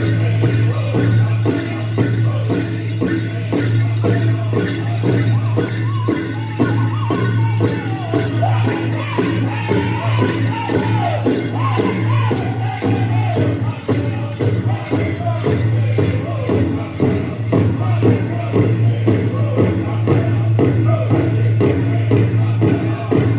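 Southern California bird singing: gourd rattles shaken in a steady, even beat under a group of voices singing in unison.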